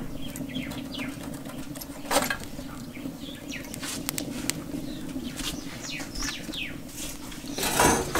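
Small wood fire crackling in a rocket stove, with two louder clatters, about two seconds in and near the end, as sticks are pushed into its metal feed pipe. Birds chirp in the background.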